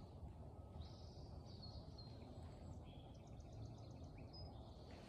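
Faint backyard birdsong: several short high whistled notes and a quick trill from small songbirds, over a steady low background rumble.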